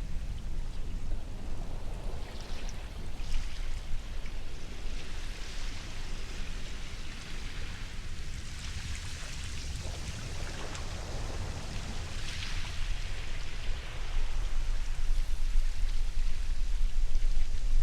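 Ocean surf: waves washing in and drawing back, a rushing hiss of water over a deep steady rumble, swelling louder in the last few seconds.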